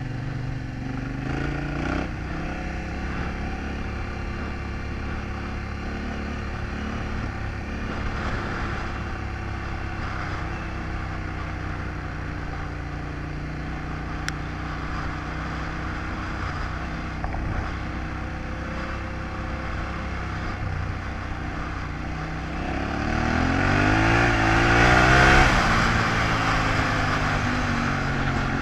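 Yamaha Ténéré 700's 689 cc parallel-twin engine running steadily under way. Near the end the revs climb and it gets louder, then drop back.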